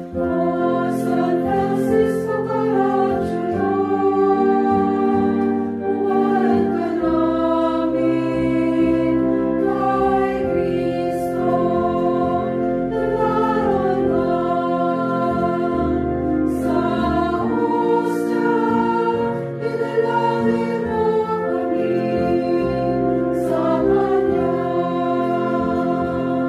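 A small choir of women's voices singing a Tagalog hymn in harmony, in slow phrases with long held notes.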